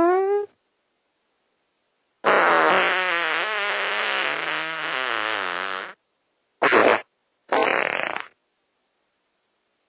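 Fart sound effects played one after another, with dead silence between them. The tail of a rising-pitched fart ends about half a second in. After a gap comes a long fart of about four seconds with a wobbling pitch, then two short ones in quick succession.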